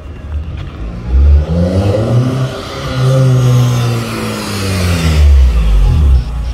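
Honda B18B 1.8-litre four-cylinder engine running through a newly fitted exhaust as the car accelerates up the street. The revs climb, hold, ease off and climb again, then fall away near the end as the car slows and pulls up.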